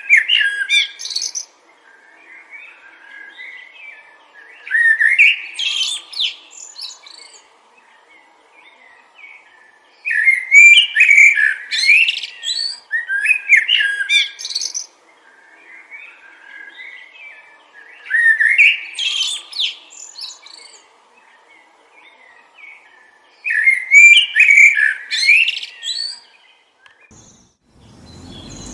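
A songbird singing: about five loud phrases of quick chirps and trills, each around two seconds long and repeated every few seconds, with softer calls in between.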